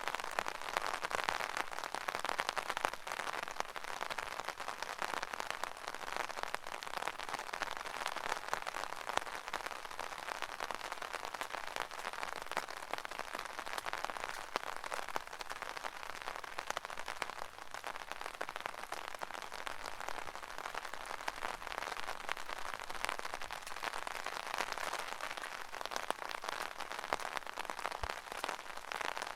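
Rain pattering steadily on an umbrella canopy: a dense, even patter of drops with occasional sharper, heavier drips.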